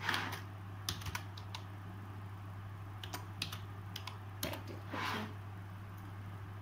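Laptop keyboard being typed on: a handful of separate keystroke clicks in small clusters, over a steady low hum. Two short, soft rushes of noise, one at the very start and one about five seconds in.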